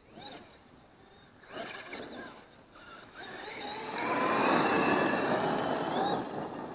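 Traxxas X-Maxx RC truck's brushless electric motor on a Hobbywing MAX6 ESC whining as the throttle is blipped twice, then a longer full run from about three seconds in, the whine rising and falling with a rushing noise under it.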